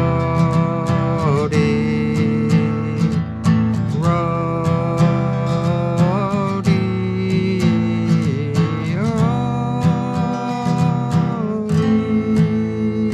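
Instrumental passage of a rock song: guitar strumming steadily under a sustained lead melody that bends up and down in pitch every couple of seconds.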